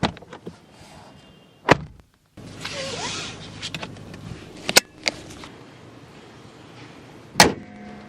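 Lexus ES car sounds: a door latch clicking and thudding shut in the first two seconds, then a seatbelt's webbing pulled out with a brief sliding hiss and the buckle clicking into its latch. Near the end, one loud slam of the bonnet being shut.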